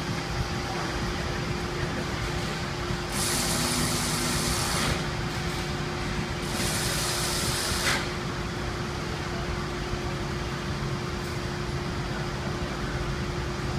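Freshly rebuilt Toyota 2AZ-FE 2.4-litre four-cylinder engine running steadily in its first run after the rebuild. Two hissing spray bursts come a few seconds in, the first about two seconds long and the second about a second and a half.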